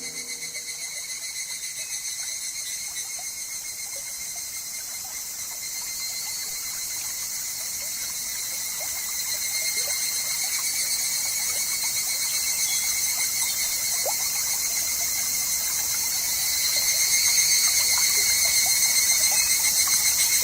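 Higurashi (evening cicadas) calling in rapid pulsing trills over a faint trickling stream. The chorus grows louder about ten seconds in and again near the end.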